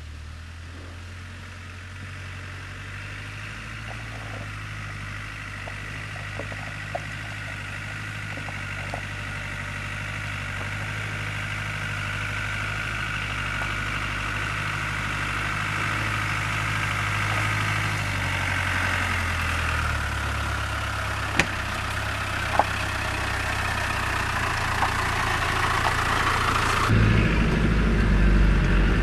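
Land Rover Discovery's 200Tdi four-cylinder turbodiesel running at low, steady revs as it crawls closer, growing steadily louder, with a couple of sharp knocks about three-quarters through. Near the end the sound switches abruptly to a louder, deeper engine rumble heard from inside the cab.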